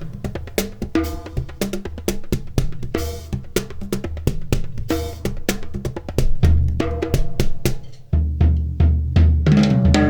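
Solo percussion playing a fast, dense rhythm of drum strokes. Deep, heavy low drum hits come in past the middle.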